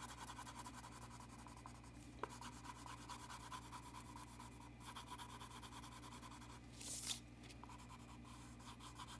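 A Prismacolor Premier violet colored pencil scribbling on drawing paper in quick back-and-forth shading strokes, faint and even. A brief louder rustle comes about seven seconds in.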